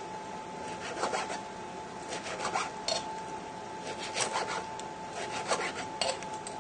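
A knife sawing back and forth through a grilled pork chop, the blade rasping on a plastic chopping board in short runs of strokes every second or so.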